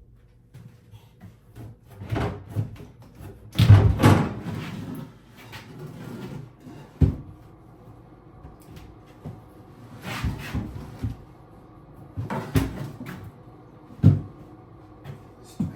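A vanity sink top being lifted, shifted and set down on a bathroom vanity cabinet: irregular knocks, thumps and scraping, the heaviest thump about four seconds in and a sharp knock about seven seconds in.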